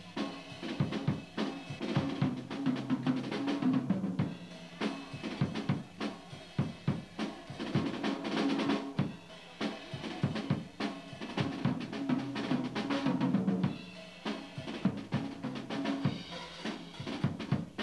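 A drum kit being played: snare and bass drum hits in a busy rhythm with rimshots and rolls, with other music underneath.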